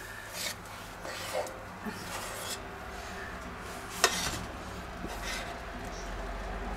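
A spoon scraping thick spätzle dough out of a stainless steel saucepan into a spätzle slicer's hopper, in short scrapes, with one sharp metal clack about four seconds in. A low steady hum runs underneath.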